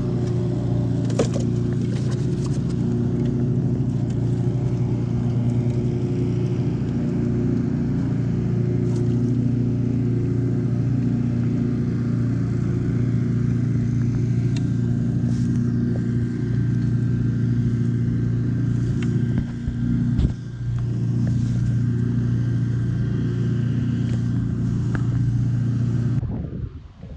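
A steady, low engine hum with several overtones, holding one pitch throughout, with a single knock about twenty seconds in; it cuts off suddenly near the end.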